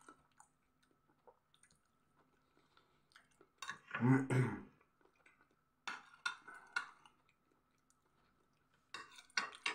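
Close-up chewing and wet mouth sounds of a man eating stewed potatoes, with a spoon clicking and scraping on a china plate. The loudest cluster, about four seconds in, holds a short voiced sound along with the chewing.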